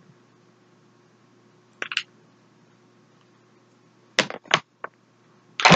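A few sharp plastic clicks and taps from lip gloss tubes and caps being handled: one about two seconds in, then a quick cluster near the end.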